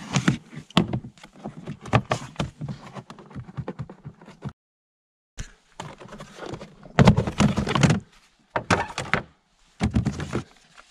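Hard plastic covers in a Volvo V70's engine bay being unclipped and lifted off to reach the battery: a run of clicks, knocks and clunks, with a short break near the middle and the loudest clatter about seven seconds in.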